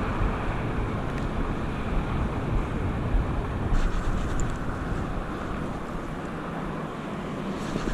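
Steady rushing noise of flowing river water, with wind buffeting the microphone.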